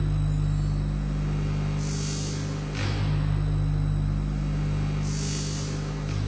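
Electronic drone soundtrack: a steady low hum with a hiss that swells and fades every few seconds, and a short swept whoosh a little under three seconds in.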